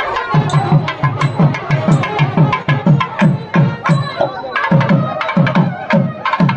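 Music with a fast, steady drumbeat.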